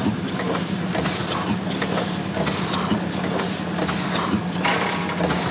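Heavy geared machinery running: a steady low hum with irregular clanks and rattles from the gearing.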